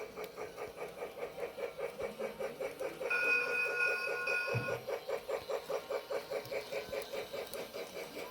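Lionel Polar Express battery toy train running on its track with a fast, even rhythm of about six beats a second. About three seconds in, the locomotive's electronic bell sound effect, triggered from the remote, rings out for about a second and a half as a steady chime that cuts off suddenly, followed by a soft thump.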